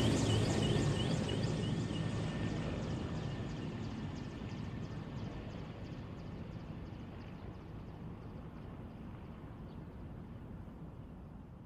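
Bell UH-1 Huey helicopter's rotor beating rhythmically over a rumbling turbine, steadily fading away until it is faint.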